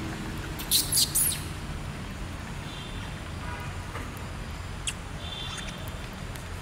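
High-pitched animal squeaks and chirps: three sharp squeals close together about a second in, then a few shorter chirps, over a steady background hiss.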